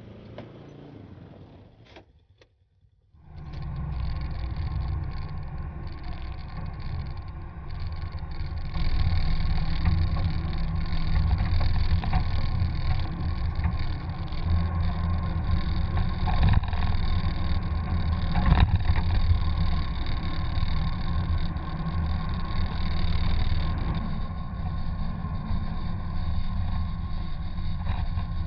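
A Hummer driving up a rough dirt trail, heard from a camera mounted on its hood. From about three seconds in there is a steady low rumble of the vehicle mixed with wind on the microphone, and a couple of sharper knocks from bumps.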